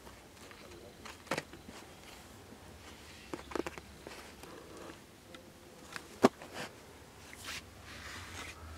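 Comic books being flipped through by hand in a bin: scattered soft knocks and rustles as the albums tip against each other, with one sharp knock about six seconds in.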